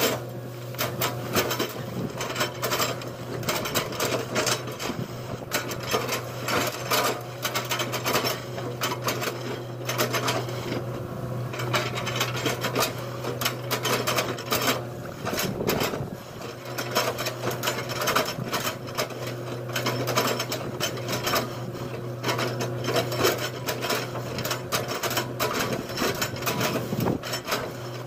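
Excavator working: its diesel engine runs with a steady drone under a dense, irregular crackle of knocks, scrapes and rattles. The drone drops away briefly about halfway through while a louder scraping stretch comes through.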